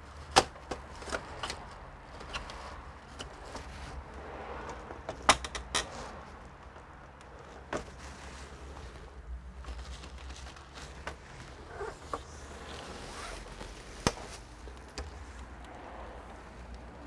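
Scattered sharp clicks and knocks of hands handling the plastic and metal parts of an all-in-one PC being taken apart, over a low steady hum.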